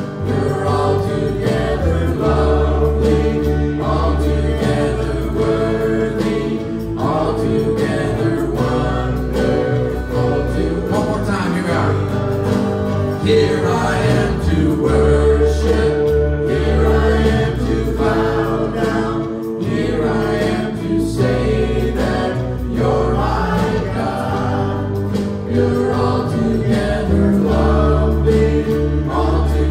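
A small worship band playing a gospel song, with men's and women's voices singing together over acoustic guitar, electric guitar and keyboard.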